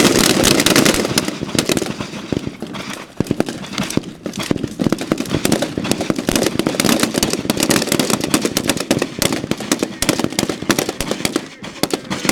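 Rifle fire from a whole firing line shooting at once: many sharp, overlapping shots in quick, irregular succession, the densest volley in the first second or so. The shots come as controlled pairs in a timed drill with a speed reload, hence the brief thinning partway through.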